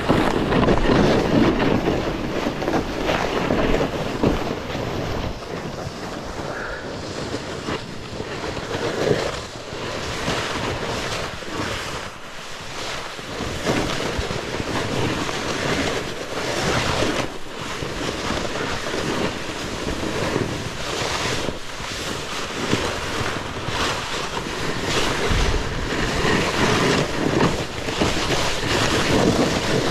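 Snowboard riding through chopped-up, lumpy snow: the board scraping and hissing over the bumps without a break, with wind buffeting the microphone.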